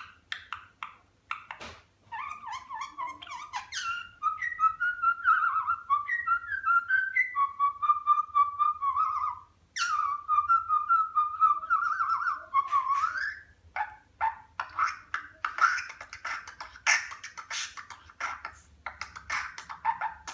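A budgerigar vocalising in its 'beatboxing' style. A few sharp clicks at first give way to long runs of warbling chatter with a short break near the middle, and then to a stretch of quick clicks and buzzy chatter toward the end.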